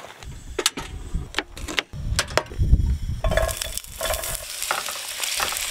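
Knocks and clicks of a frying pan and utensils, then, a little past halfway, diced green pepper and onion are tipped into hot oil in a non-stick frying pan and start sizzling steadily.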